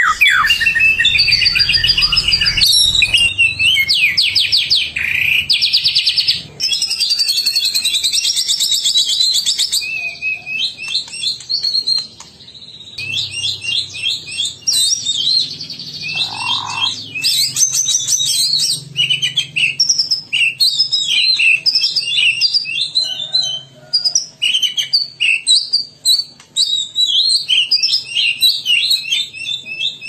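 White-rumped shama (murai batu) singing continuously: a fast, varied run of whistles, rapid trills and chattering notes, with a brief pause about twelve seconds in.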